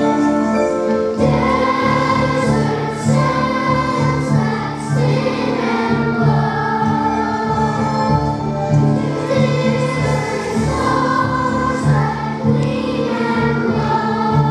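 Children's choir singing together over instrumental accompaniment. The voices come in about a second in, over music that was already playing.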